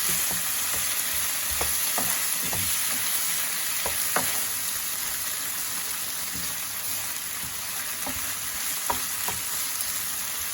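Udon noodles and onion sizzling in a hot pan while being stirred, with a few light clicks scattered through.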